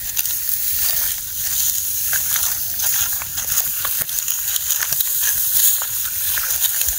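Dry, ripe wheat stalks rustling and crackling as the crop is cut and handled, with scattered sharp ticks.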